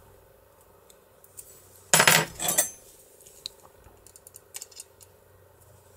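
Metal tools clattering against a lock cylinder: a short burst of metallic clinks about two seconds in, then scattered light clicks as the parts are handled.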